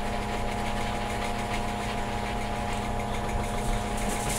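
A steady mechanical hum, with soft scratchy rubbing of a sponge scrubbed in circles over short hair.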